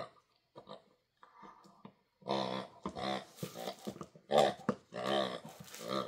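A Honking Hog dog toy's grunter sounding a string of pig-like honking grunts as a Doberman puppy chews and squeezes it. The grunts are faint at first and come louder and closer together from about two seconds in.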